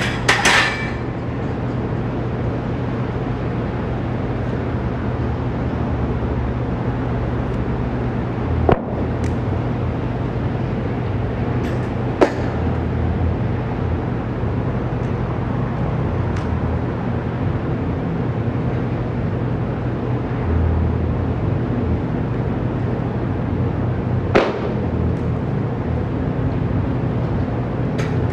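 A steady droning hum runs throughout, broken by a few sharp metallic clanks of a barbell and bumper plates being handled. The loudest clank rings on briefly right at the start, and single clanks come at about 9, 12 and 24 seconds.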